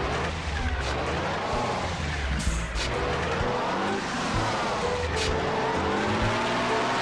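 Vehicle engine sound rising and falling in pitch, as of cars revving, with a couple of short swishes.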